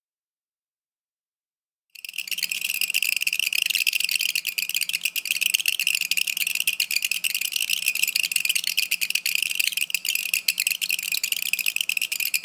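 Polyacrylamide hydrogel beads on a hot frying pan giving a steady, high-pitched shriek with a dense crackle. The shriek comes from the beads bouncing thousands of times per second on the heated surface. It starts suddenly about two seconds in.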